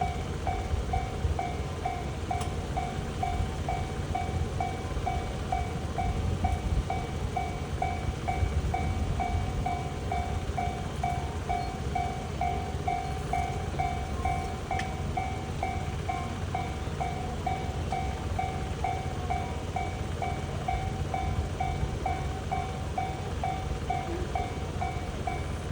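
Japanese railroad crossing warning bell ringing in a steady, even ding-ding rhythm, about one and a half strokes a second, with a continuous low rumble underneath.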